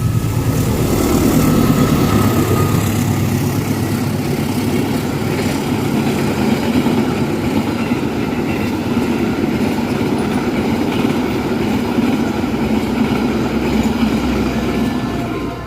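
Passenger train passing close by at speed: a loud, steady rumble of wheels on rail that eases off near the end.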